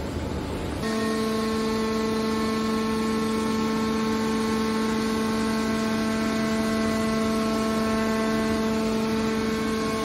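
Hydraulic power unit of a scrap steel baler running as the lid cylinder drives the lid closed over the press box: a steady, even hum of several held tones. Just before a second in, a rougher, noisier machine sound gives way to this hum.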